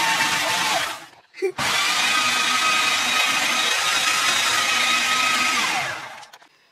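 Food processor motor blitzing frozen onion, celery and carrot in two pulses. A short run stops just under a second in. A second, longer run starts about a second and a half in, holds a steady whine for about four seconds, then winds down near the end.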